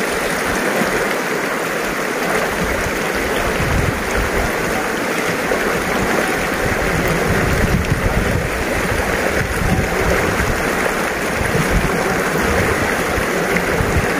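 Shallow, stony mountain river rushing and gurgling steadily over rocks.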